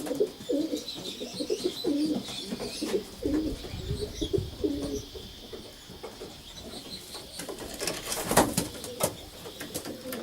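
Racing pigeons cooing in the loft, low repeated coos through the first half, with a few sharp clatters near the end.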